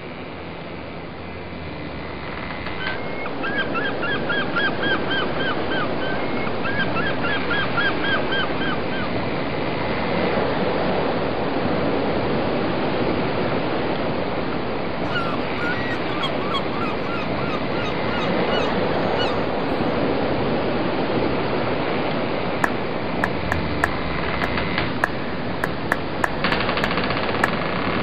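Steady rush of wind and water noise aboard a moving motorboat, growing louder over the first few seconds. Two runs of quick, repeated squawking calls come a few seconds in and again around the middle. A scatter of sharp clicks comes in the last few seconds.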